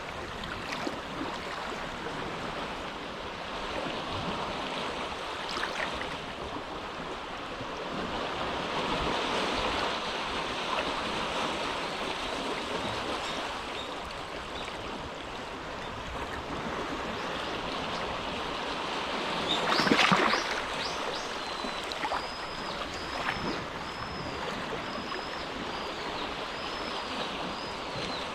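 Small waves lapping gently at the shore of a calm inlet, with one louder splash about twenty seconds in. In the last few seconds a short, high chirp repeats about once a second.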